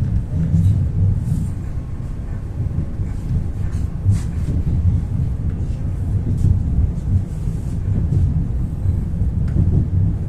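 Steady low rumble of an Ivolga 4.0 electric train running along the track, heard from inside the passenger car, with a few faint clicks and rattles scattered through it.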